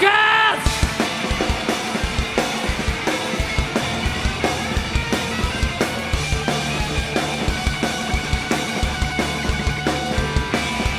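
Live rock band playing: a drum kit beats out a fast, steady rhythm on bass drum and snare under guitar and bass.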